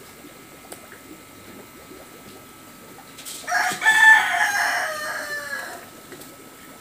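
A rooster crowing once, a single call of about two and a half seconds in the middle that drops in pitch at its end.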